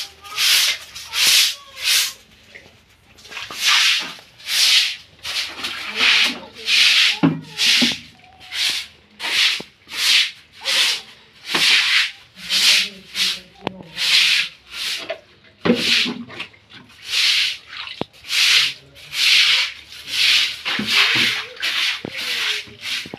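Hand broom sweeping a damp concrete floor: a steady run of swishing strokes, a little more than one a second.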